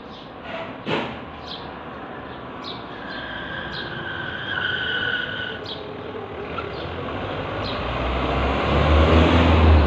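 Small cage birds chirp now and then, while a rushing noise with a low rumble builds steadily from a few seconds in and is loudest near the end. Two steady tones sound briefly in the middle.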